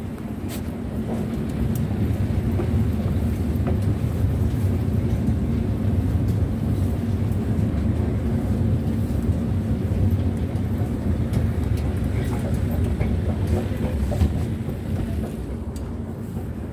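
Escalator running: a steady low mechanical rumble and hum, heard while riding on it. It swells about a second and a half in and eases off near the end, with a single knock just before it fades.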